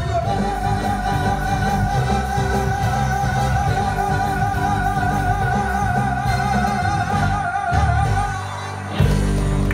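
Live band playing, with a singer holding one long note with vibrato for about eight seconds over the band's backing. The music drops back briefly near the end, then the full band comes back in with drums.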